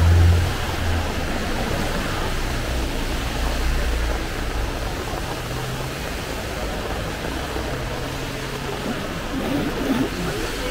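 Steady hiss of rain and traffic on a wet street. A nearby vehicle's engine hum fades out about half a second in, and fainter engine hums pass later.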